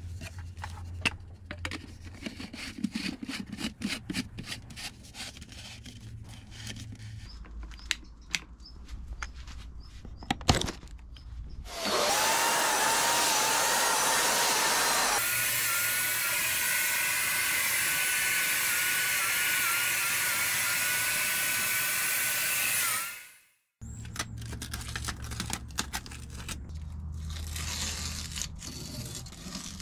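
Clicks and knocks of handling, then a handheld power tool running loudly at high speed for about eleven seconds with a steady high whine, its pitch dipping briefly again and again as it bites into the work. It stops abruptly, and the clicking and knocking resume.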